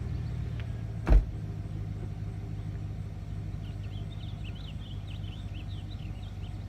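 A steady low engine hum, like a vehicle idling. One sharp knock about a second in is the loudest moment, and faint quick high chirps join from about the middle on.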